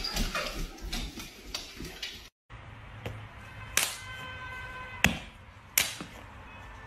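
A jumble of quick clicks and scuffles, then, after a brief gap, three sharp slaps of a hand on the top of a padded leather footstool. Faint steady tones sound over the last few seconds.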